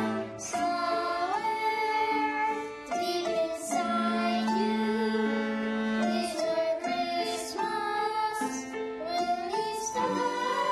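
Instrumental interlude played by violins, cello and piano: a bowed string melody that slides between some of its notes, over held bass notes and piano accompaniment.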